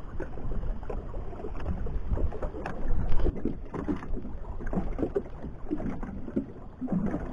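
Small fishing boat's motor running steadily while under way trolling, with a low rumble.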